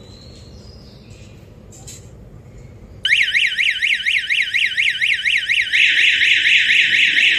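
Electronic siren of a student-built smart warning system going off abruptly about three seconds in, a loud, rapidly rising-and-falling wail that grows louder again a few seconds later; it is sounding as gas is let out in a kitchen to test the system's detection.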